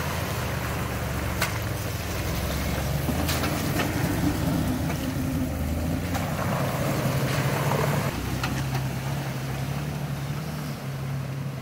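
Jeep Wrangler engine running at low revs as it crawls through a muddy, water-filled trail rut, with a couple of sharp clicks. Muddy water sloshes under the tyres, then stops suddenly about eight seconds in, leaving the engine running at a steadier note.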